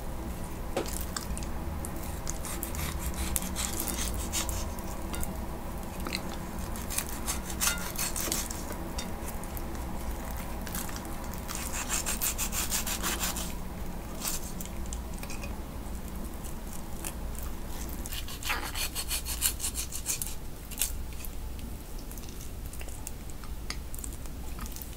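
Dorco kitchen knife sawing back and forth through the tough skin of a raw salmon fillet in several bouts of quick rasping strokes, the dull blade struggling to cut through.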